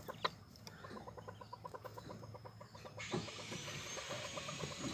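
Faint, soft clucking of quail in their pen, short notes repeated in quick succession. A faint hiss joins about three seconds in.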